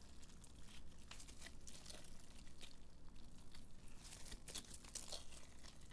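Bingsu-bead slime layered on fine sand slime being stretched, folded and kneaded by hand, giving faint, irregular crackles and crinkles.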